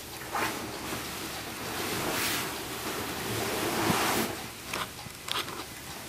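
A rushing noise like surf or wind that swells to its loudest in the middle and fades, with a few sharp clicks in the second half.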